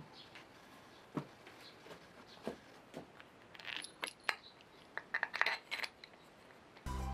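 Small hardware clicking and clinking as a metal bolt and white plastic fittings are handled over the machine's plastic housing: a few separate clicks, then a quick cluster of them. Music starts right at the end.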